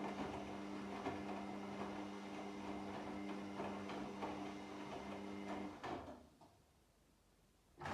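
Washing machine in its wash cycle: the drum motor runs with a steady hum and light knocks and clicks from the turning drum, then stops about six seconds in, leaving near silence. The motor starts up again right at the end.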